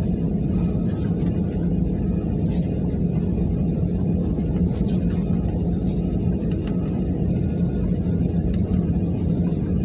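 Cabin noise of an Airbus A320-family jet taxiing on the ground after landing: a steady low rumble with a steady hum, and a few faint ticks.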